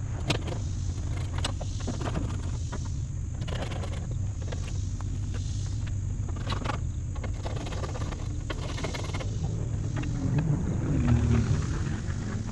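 Steady low wind rumble on the microphone, with scattered clicks and knocks from handling the truck bed and its hardware. There is a sharp click just after the start, and the rumble swells briefly about ten seconds in.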